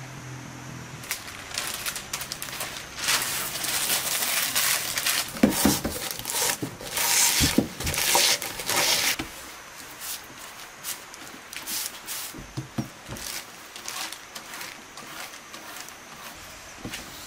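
A large sheet of paper crinkling and rustling as it is spread over a tray and cut with a knife, loudest in the first half with sharp crackles. After that come softer, scattered ticks and rustles.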